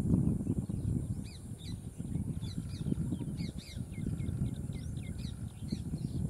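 A bird calling in quick, repeated short high notes from about a second in, over a steady low rumble.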